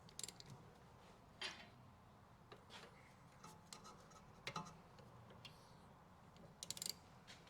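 Near silence broken by scattered light clicks and small metallic clinks of tools and brake parts being handled, sharpest about a second and a half in, in the middle, and in a short cluster near the end.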